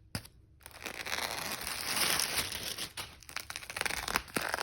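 Crinkling and tearing of an album's packaging being opened by hand, a dense crackle with sharper snaps near the end.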